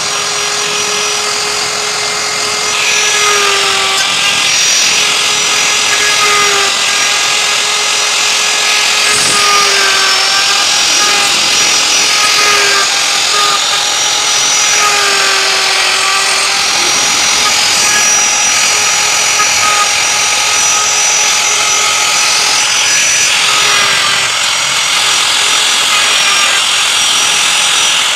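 Handheld electric router running at high speed while its bit carves grooves into a wooden panel. The motor's steady whine sags slightly in pitch each time the bit bites, over a constant cutting hiss that grows louder about three seconds in.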